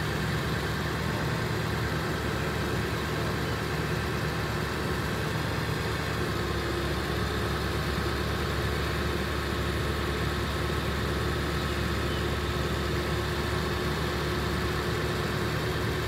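Bucket truck's engine running at a steady idle, without change.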